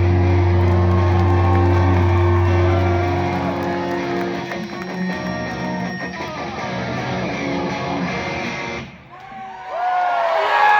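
A live rock band's electric guitars ringing out over a held low bass note as a song ends. The bass note drops out about three seconds in, and the guitars ring on with bending tones, briefly dipping near the end.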